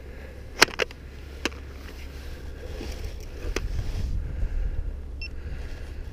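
Sharp plastic clicks and knocks as the iRobot Looj gutter-cleaning robot is handled and switched on, four in the first few seconds, the loudest the first. A short electronic beep comes about five seconds in, over a steady low rumble.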